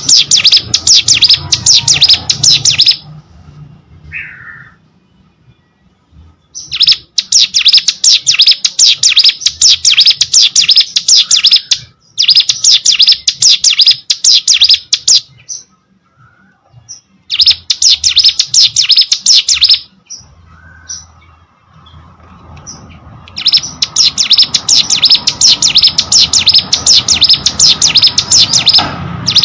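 Ciblek gunung, a prinia, singing in loud bouts of rapid, high repeated notes lasting a few seconds each, with short pauses and a few soft single calls between.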